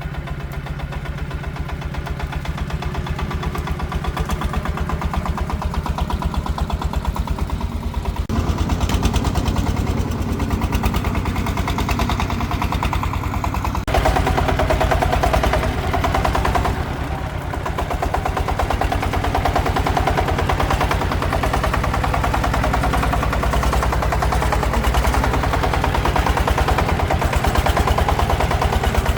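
Single-cylinder diesel engine of a công nông farm truck running with a fast, even exhaust beat. It gets louder about eight seconds in and louder again about halfway through, with a brief dip soon after.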